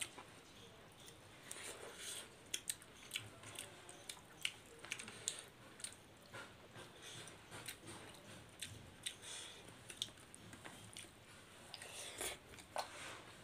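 Two people chewing fish curry with rice and bamboo shoots, eaten by hand: a faint, irregular run of sharp mouth clicks and smacks.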